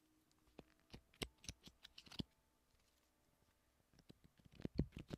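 Tarot cards being shuffled and handled: quick, faint papery clicks and taps in two clusters, one about a second in and one near the end.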